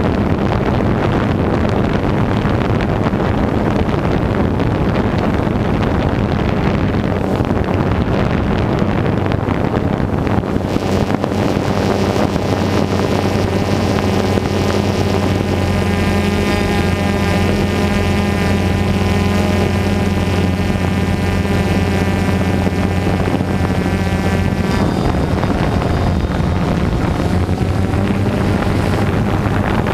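DJI Phantom 2 quadcopter's motors and propellers buzzing steadily as it flies, picked up by the GoPro mounted on it, with wind rushing over the microphone. From about ten seconds in a higher whine with many overtones joins the buzz and fades out again a few seconds before the end.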